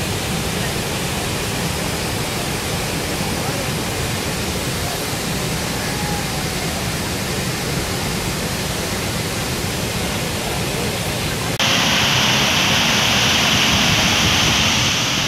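Athirapally Falls in heavy flood: a loud, steady rush of falling water. About three-quarters of the way through, it cuts abruptly to a louder, hissier wash of water and spray heard from inside a car.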